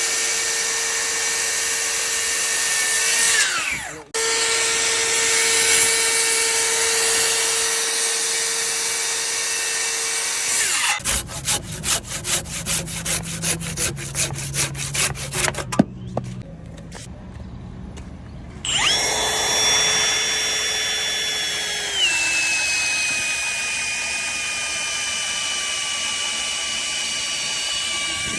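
Electric power drill running with a steady high whine; it stops briefly and restarts, then gives way to several seconds of rapid, even knocking at about four a second. After a short lull the drill runs again, its pitch stepping down partway through and holding lower.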